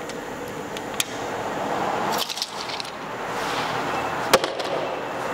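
A woodworking machine runs with a steady noise, with two sharp clicks, one about a second in and one near the end.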